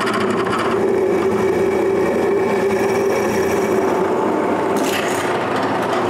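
Drill press running steadily with a constant hum, its bit drilling holes through small steel plates cut from flat bar.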